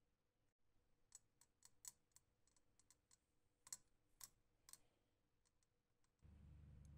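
Near silence with faint, irregular clicks and ticks of gas bubbles fizzing off the workpiece in a nickel electroplating bath. A low hum comes in near the end.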